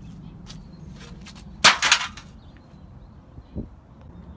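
A sharp, loud clatter about a second and a half in, with a second hit close behind it, then a single dull thump a little later, over a faint outdoor background.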